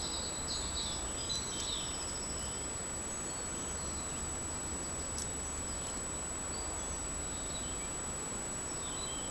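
Small birds chirping in short calls, mostly in the first two seconds with a few more near the end, over a trail camera's steady hiss and a constant high-pitched whine.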